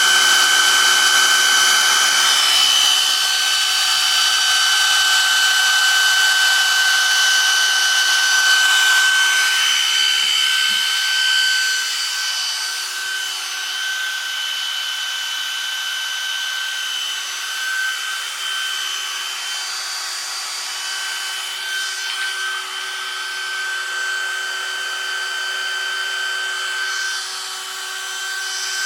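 DIY CNC router's spindle running with a steady high whine while its bit engraves text, with rasping cutting noise over it; it gets somewhat quieter about twelve seconds in.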